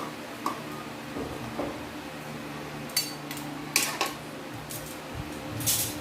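Kitchen utensils and cookware clattering: a few sharp metal knocks about three and four seconds in, then a longer clatter near the end.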